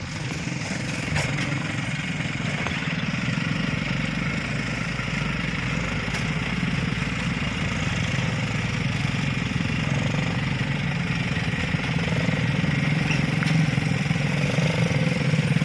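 An engine running steadily at low speed, growing gradually louder.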